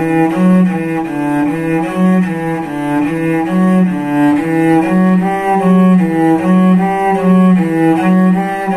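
Solo cello playing a slow, smooth bowing exercise: a steady run of connected notes changing about twice a second, with even bow changes.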